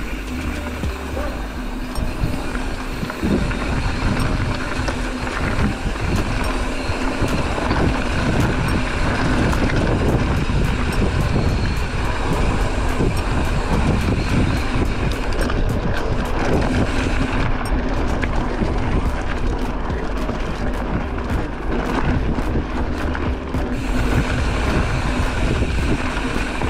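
Wind buffeting the microphone and bicycle tyres rolling over a rough trail, with many small rattles and clicks from the bike.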